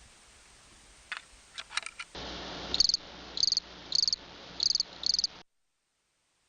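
Cricket chirping: five short, high chirps about two a second over a steady hiss, after a few faint clicks; everything cuts off suddenly.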